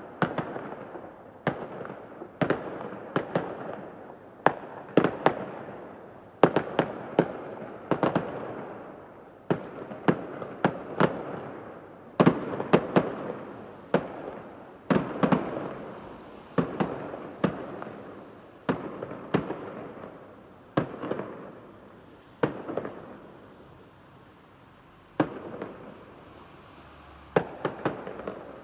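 Fireworks exploding in an irregular barrage of sharp bangs, often two or three in quick succession. Each bang trails off in an echoing rumble. There is a short lull about three-quarters of the way through before the bangs resume.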